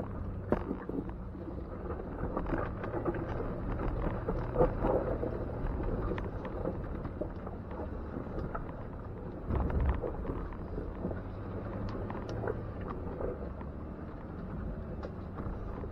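Jeep Wrangler engine running low and steady as it crawls over a rocky trail, heard from inside the cab, with scattered clicks and knocks from rocks under the tires. A heavier thump comes about nine and a half seconds in.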